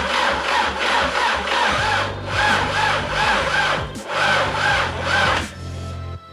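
Starter motor slowly cranking a 1.8T 20-valve turbo four-cylinder engine in a slow, even rhythmic chug of compression strokes. The engine does not catch, and the cranking stops near the end. The cranking is weak, which the owner puts down to a low battery or, more probably, a failing starter.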